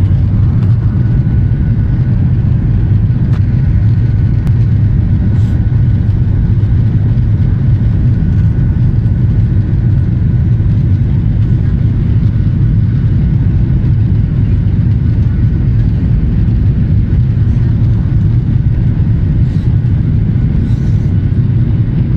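Airliner cabin noise during the take-off roll: a steady, loud, low rumble of the engines and wheels on the runway, with a faint high whine that fades out about halfway.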